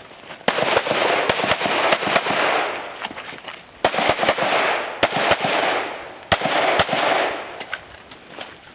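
Handgun fired rapidly in a USPSA stage: about a dozen sharp shots in quick strings of two to four, with short pauses between strings and echo after each shot.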